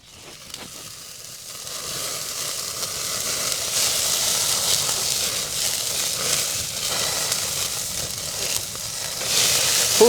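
Burger patties sizzling as they fry in a pan: a steady frying hiss that swells over the first few seconds and then holds.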